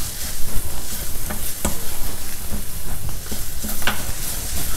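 Chopped ginger and chillies frying in sesame oil in a stainless steel pan, sizzling steadily while a wooden spatula stirs them, with scattered scrapes and taps of the spatula against the pan.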